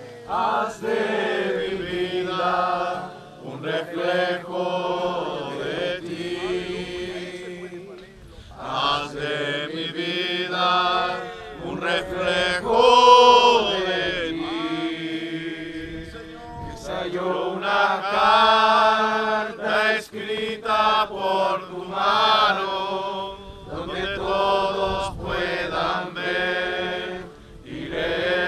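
A congregation singing a Spanish-language praise song together, with long held notes.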